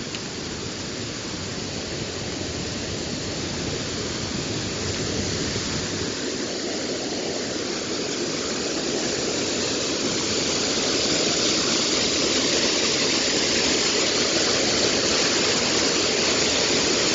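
Water pouring over a gristmill dam and falling down a rock ledge: a steady rushing that grows gradually louder, with more hiss from about ten seconds in.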